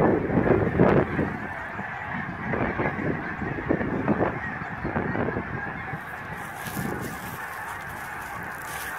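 A large flock of Canada geese honking in flight, many calls overlapping into a continuous din. A few loud low rumbles come in the first second.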